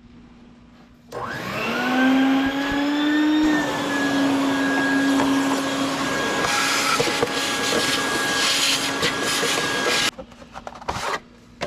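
A vacuum cleaner switched on about a second in, its motor whine rising as it spins up, then running steadily with a rush of air as it sucks dirt out of a car engine's air filter box; it shuts off suddenly near the end.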